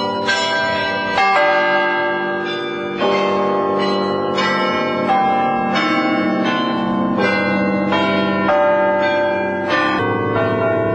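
Carillon bells in the Bruges Belfry playing a tune close by. Bells of different pitches are struck one after another, about one to two a second, and each note rings on under the next.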